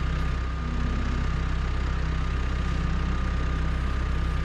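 New Holland T2420 compact tractor's diesel engine idling steadily.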